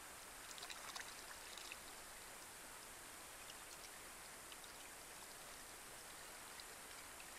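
Light rain falling on a pond: a faint, steady hiss with scattered drip plinks, a small cluster of them about a second in.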